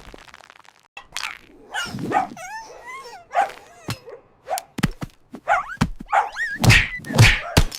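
Cartoon slapstick sound effects: a quick string of knocks and thuds, mixed with short wavering, whining animal-like cries.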